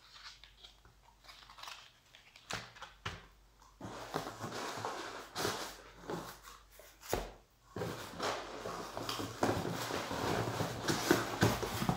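Plastic packaging and cardboard rustling and crinkling as items are rummaged out of a cardboard shipping box. A few light clicks come first, then steady crinkling from about four seconds in, with a short pause near the middle.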